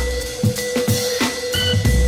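Background electronic music with a steady drum beat and a deep bass line.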